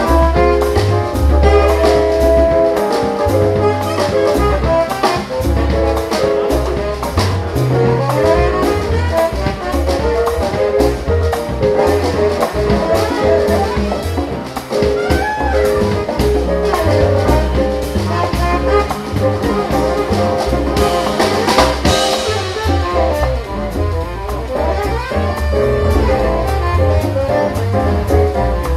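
Small jazz band playing: a saxophone melody over electric bass and drum kit.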